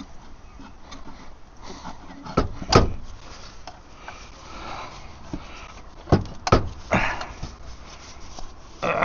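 Tools and car parts being handled: a few sharp knocks and clunks, the loudest about three seconds in and two more about six seconds in, with a short scraping rustle around seven seconds.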